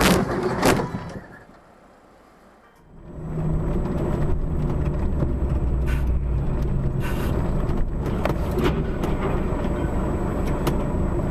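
A sharp bang and a second one under a second later, then a brief lull. From about three seconds in, steady low engine and road drone heard from inside a moving vehicle's cab, with a few faint clicks.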